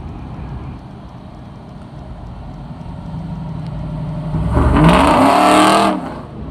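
Low traffic rumble, then about four and a half seconds in a lowered pickup truck accelerates hard past at close range, its engine revving up in rising pitch and loud for about a second and a half before falling away sharply.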